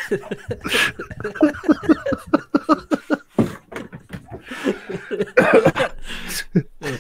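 Indistinct talk and laughter from men on an online voice call; no clear words come through.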